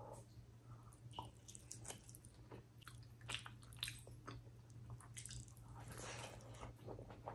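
Faint, close-miked eating sounds: bites and wet chewing of soft, saucy food (chicken liver curry, rice and fried egg) eaten by hand, with many short irregular mouth clicks and squelches.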